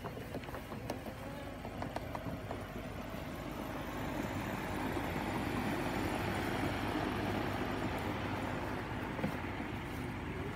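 Red Radio Flyer plastic wagon rolling over a bumpy grass lawn, its plastic wheels and body rattling and rumbling, with a few clicks early on that settle into a steadier, louder rumble in the middle.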